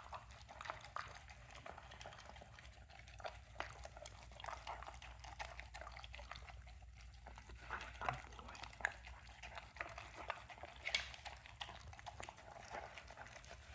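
Dog eating soft, wet food: quiet wet licking and chewing with many small irregular clicks.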